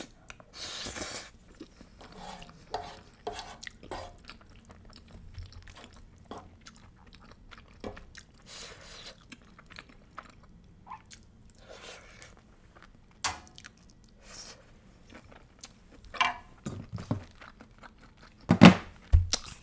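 Chewing of creamy shrimp penne pasta, with scattered soft clicks of wooden utensils and a louder knock about a second before the end.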